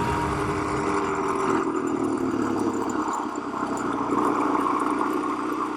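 A vehicle engine running steadily, with music fading out in the first second or two.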